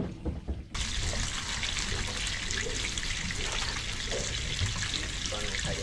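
Coated cobia fillets frying in hot oil in a pan, a steady crackling sizzle that starts abruptly just under a second in.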